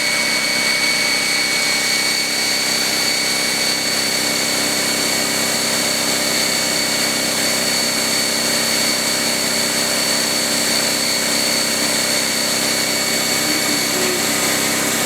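Harbor Freight Fortress 27-gallon air compressor running at about a foot away: a steady, even drone of motor and pump with a thin, steady high whine on top.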